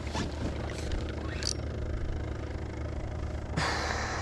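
A steady low hum, with a brief loud rustle near the end as a shirt sleeve brushes across the camera microphone.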